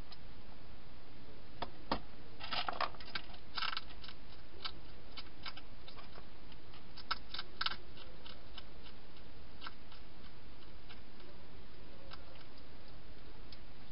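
Wild hedgehog eating inside a plastic feeding station: irregular sharp crunching clicks that come in short runs about two to four seconds in and again around seven seconds in, over a steady hiss.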